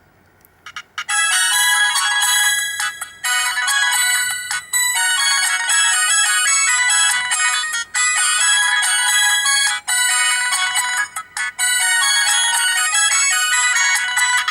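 Samsung SGH-C417 polyphonic ringtone melody played on a Sony Ericsson J210i phone's loudspeaker. It starts about a second in and plays loud, with a few brief breaks between phrases, and has almost no bass.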